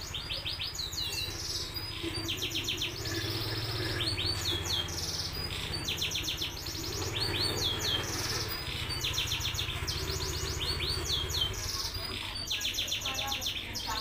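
Domestic canary singing: rapid rolling trills of repeated high notes mixed with short falling whistles, phrase after phrase with only brief breaks, over a steady low background hum.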